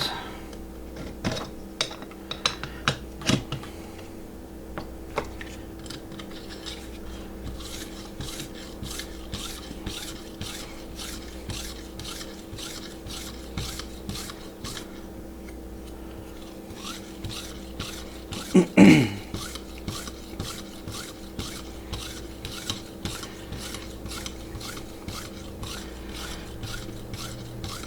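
Leather strop on a guided sharpening arm rubbed in quick, evenly repeated strokes along a clamped knife edge, stropping off the burr left by sharpening. A brief louder voice sound comes about two-thirds through.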